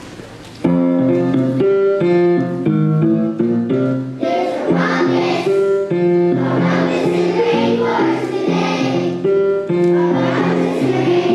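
Instrumental accompaniment starts abruptly about a second in, with steady held notes, and a choir of young children joins in singing a few seconds later.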